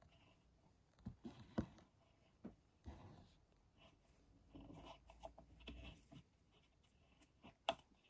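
Near silence with a few faint clicks and light handling rustle from work at the electric unicycle's pedal hanger.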